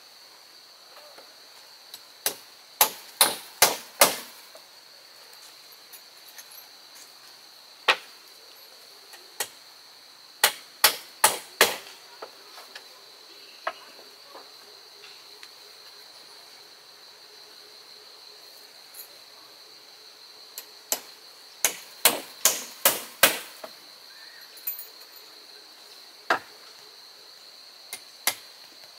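Hammer strikes on wood in quick runs of three to five blows, with single knocks in between. A steady high insect drone runs underneath.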